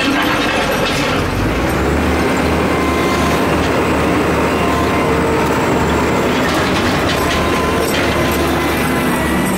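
Wheel loader's diesel engine running loud and steady as the machine rolls slowly past, with a continuous mechanical clatter and clanking from the chains fitted on its tires.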